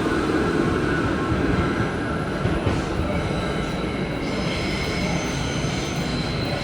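New York City subway train running with a steady rumble and rail noise. From about three seconds in, several thin, high wheel-squeal tones join it.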